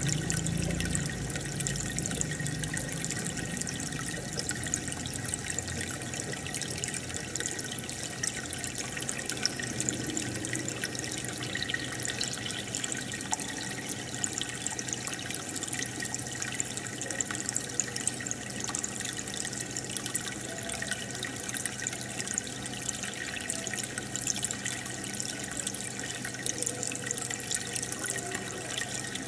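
Aquarium air bubbler: bubbles rising and breaking at the surface in a steady stream of small water pops and trickling, with a low steady hum underneath.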